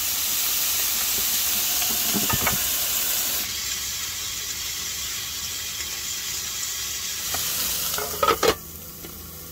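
Thick slices of pork belly sizzling and frying in a grill pan over a portable gas stove, a steady hiss that eases a little about a third of the way in.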